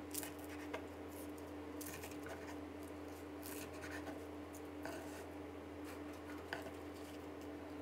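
Chef's knife cutting through crispy deep-fried eggs on a wooden cutting board: faint crunching and scraping with a few sharp crackles at irregular moments. A steady low hum runs underneath.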